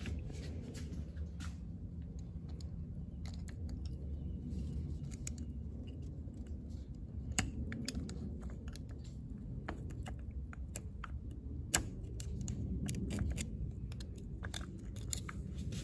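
Irregular small metal clicks and ticks as coil springs and pins are pushed into a Lokka automatic locker inside a differential carrier with a steel pick, over a low steady background hum.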